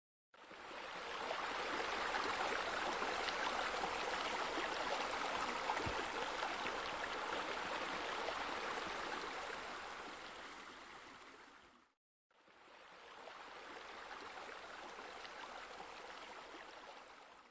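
Steady rush of running water, like water spilling from pool water features into the pool. It fades out about twelve seconds in and fades straight back in.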